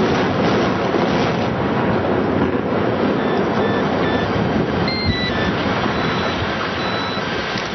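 Loud continuous rumbling roar of a building collapsing in a demolition, easing slightly toward the end, with faint short high tones here and there.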